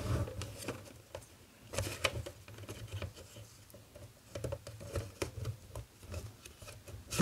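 Plastic film cartridge and dark slide sliding into a Polaroid 600 camera's film compartment: soft scraping and rustling with scattered small plastic clicks, in several short spells.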